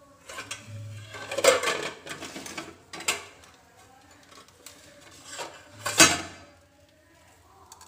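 Non-stick pan with mustard seeds heating in oil, giving a few sudden sharp clatters and crackles. The loudest come about a second and a half in and again about six seconds in.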